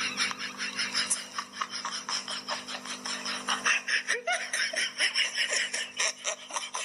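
Quick, high-pitched laughter, a long run of rapid 'ha' bursts about five a second, over a steady low hum.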